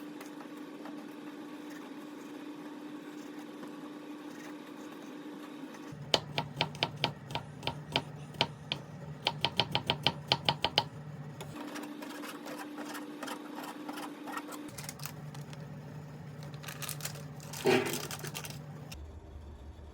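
Kitchen knife chopping on a cutting board in quick runs of sharp taps, about four or five a second, with a steady hum between the runs and one louder knock near the end.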